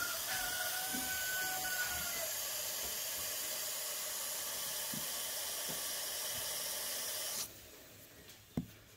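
Aerosol can of expanding spray foam hissing steadily as foam is pumped through its straw applicator into a lawn mower tire. The hiss cuts off suddenly about seven and a half seconds in.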